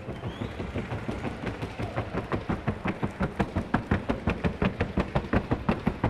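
A trocha mare's hooves striking a wooden sounding board in the fast, even trocha gait: sharp hoofbeats at about six a second, getting louder through the middle.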